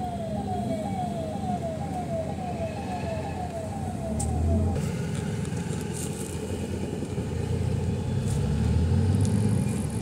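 Car driving, with steady road and engine rumble. Over the first five seconds a siren-like electronic tone falls in pitch again and again, a little over two times a second, then stops.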